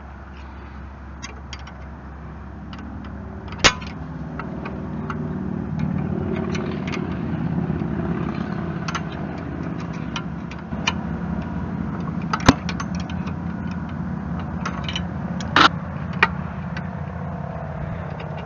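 Tractor diesel engine driving a Kubota BH77 backhoe runs steadily and gets louder about five seconds in. A few sharp knocks come over it, the clearest near four, twelve and fifteen seconds.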